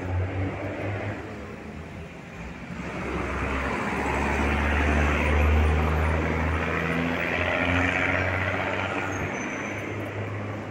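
Road traffic: a large vehicle's low engine rumble and tyre noise swell about three to four seconds in, peak, then slowly fade as it goes by.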